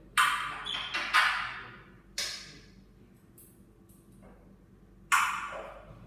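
An African grey parrot on its perch stand makes a series of sharp, loud sounds, about five in all, each starting suddenly and tailing off over about half a second.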